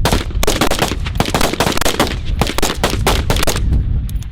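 A firing line of many shooters firing rapid, overlapping gunshots in quick succession, a ragged volley that thins out near the end.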